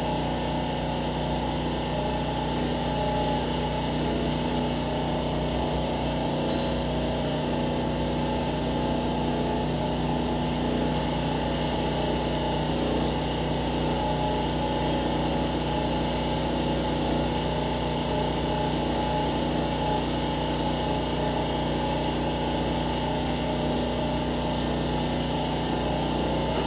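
A machine running steadily, a constant hum made of several fixed tones, with a few faint ticks.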